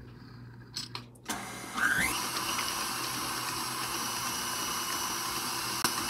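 A KitchenAid Classic tilt-head stand mixer is switched on after a few light taps, its motor rising in pitch as it comes up to speed, then running steadily with the wire whip beating a wet batter in a glass bowl.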